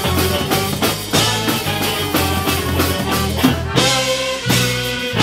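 Live band playing with drum kit, electric guitar, trumpet and saxophone over a steady, even beat; about four seconds in the band holds a chord for about a second.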